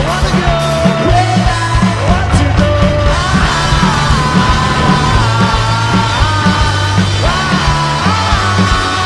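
Rock music with a steady driving beat and a sung or lead melody line.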